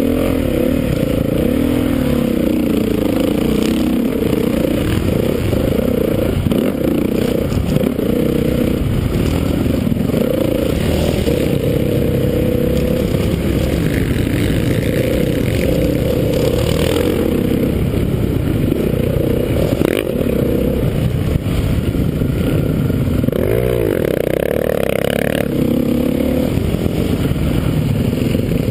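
Honda CRF450's single-cylinder four-stroke engine being ridden hard on a dirt track, revving up and down, its pitch rising and falling with throttle and gear changes.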